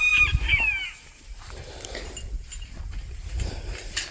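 A high-pitched animal call lasting about a second and falling in pitch at its end, over low wind rumble, then faint scattered rustling.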